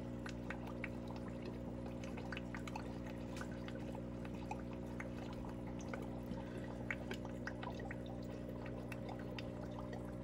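Aquarium filter running: water trickling with scattered small drips and pops over a steady low hum.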